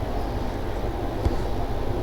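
Steady low rumbling background noise, with one faint click about a second in.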